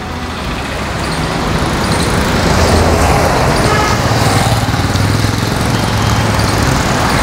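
Road traffic going past close by: engine and tyre noise swell over the first two or three seconds, then stay loud and steady, with a low engine hum underneath.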